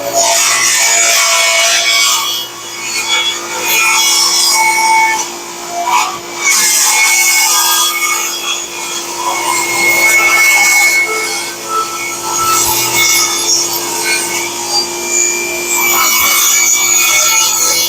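Power tool cutting into black walnut: a steady motor hum under a loud rasping cut that dips and swells every few seconds as the tool works through the slab.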